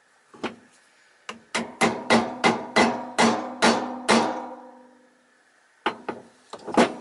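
Hammer blows on a metal part: a couple of single taps, then a steady run of about eight ringing strikes at roughly three a second, then a few more taps near the end.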